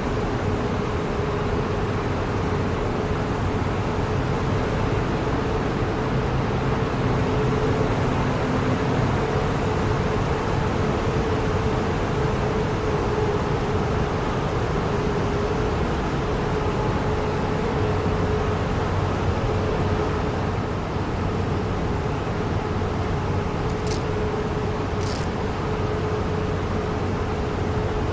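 Subway train running with a steady rumble and a constant hum. Two short high-pitched ticks come a second apart near the end.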